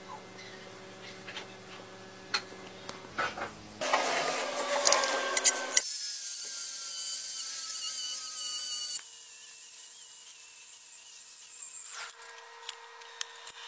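Electric angle grinder running with a steady high whine as its disc scrubs rust off a steel rod. It comes in loudly about four seconds in, after a quieter stretch with a few light clicks, and its whine changes pitch about nine seconds in.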